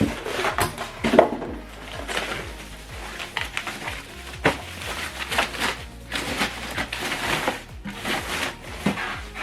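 Cardboard box and packaging being handled during unboxing: irregular rustling, scraping and knocks as the subwoofer is taken out of its box.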